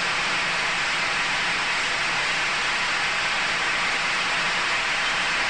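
A steady, even hiss-like noise, with no music or voice.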